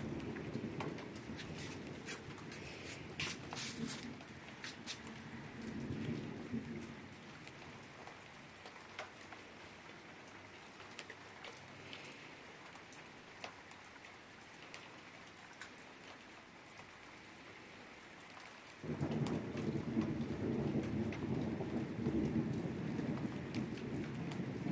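Rain falling steadily during a thunderstorm, with scattered sharp drop ticks. A rumble of thunder fades away over the first several seconds, and about three-quarters of the way through a new peal breaks in suddenly and keeps rumbling.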